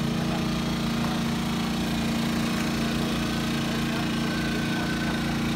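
A small engine running steadily at an even idle, a constant low drone with no change in pitch.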